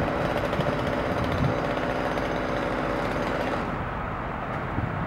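Gas chainsaw running steadily, its sound turning duller about three and a half seconds in.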